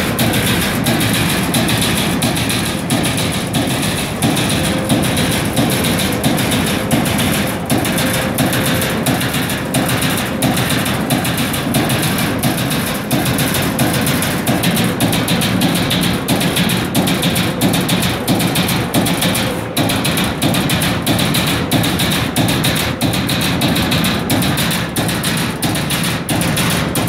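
Servo-driven CNC turret punch press punching sheet steel: a rapid, continuous stream of sharp strikes, many a second, over a steady mechanical din.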